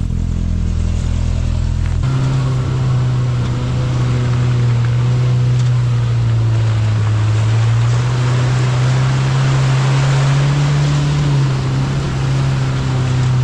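Off-road vehicle's engine running under load as it drives along the trail. Its note shifts about two seconds in, rises a little past the middle and drops near the end. A rushing hiss from the tyres and ground builds toward the middle.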